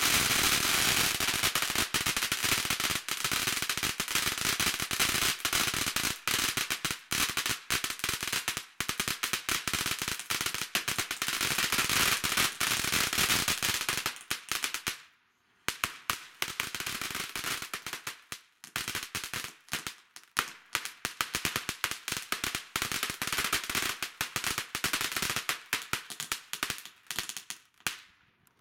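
Mandarin Fireworks "Candy Fantasy" ground fountain spraying sparks with a steady hiss and dense crackling. About fifteen seconds in it falls silent for a moment, then goes on with sparser, quieter crackles that thin out near the end.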